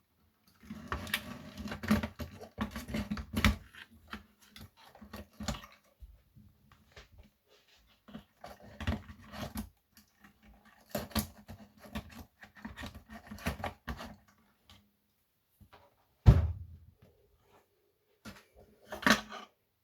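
Irregular handling noise: clicks, knocks and rattles of hard objects being moved and set down, in several bursts, with one sharp loud knock about three-quarters of the way through.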